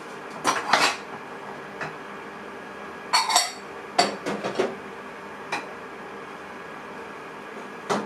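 Microwave oven running with a steady hum while heating a cup of water, broken by several sharp clinks and rattles: a cluster about half a second in, more around three to four and a half seconds, and single ones later and just before the end.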